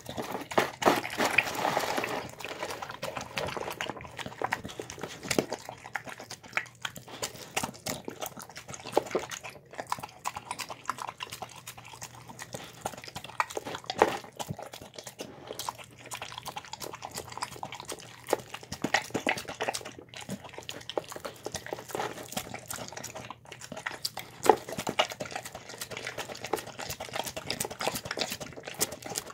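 A dog eating soft pulled pork and mashed squash and potatoes from a bowl: a steady run of wet chewing and mouth clicks, busiest in the first couple of seconds, with a few sharper clicks later on.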